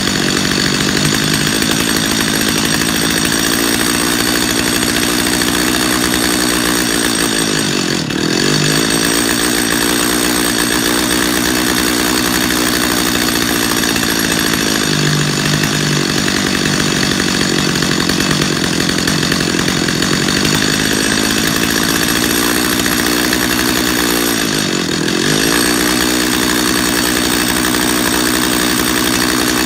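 Stihl two-stroke chainsaw engine running at a fast, steady idle while its carburetor's low-speed screw is turned. The engine speed sags and recovers about 8 seconds in and again about 25 seconds in, as the mixture goes past the sweet spot on either side, then settles where it idles fastest.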